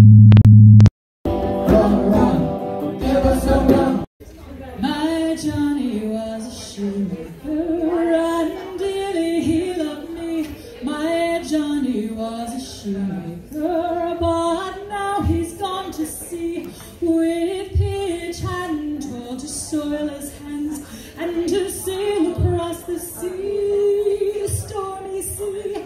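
A steady electronic tone cuts off about a second in, followed by a short synthetic intro sound. From about four seconds a woman sings a slow Irish love ballad, largely on her own, with occasional low drum beats.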